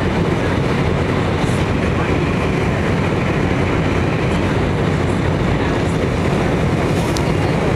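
Steady, loud cabin rumble of an MD-83 airliner descending to land: airflow over the wing with its flaps extended, and the hum of the rear-mounted Pratt & Whitney JT8D engines.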